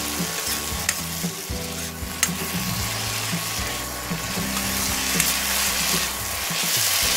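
Chopped onion, tomato and green chilli sizzling in a little oil in a steel kadai while being stirred with a metal spoon, which clicks against the pan a few times. The vegetables are being sautéed until soft.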